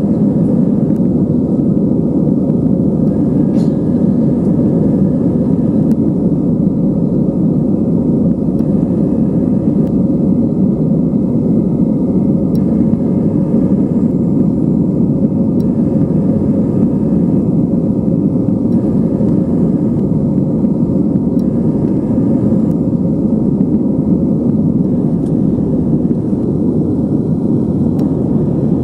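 Airbus A320 during its takeoff roll, heard from inside the cabin: the jet engines at takeoff power together with the runway rumble, as one loud, steady rumble.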